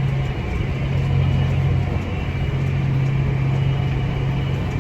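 Tractor engine running steadily under load while pulling a planter, a continuous low drone heard from inside the cab.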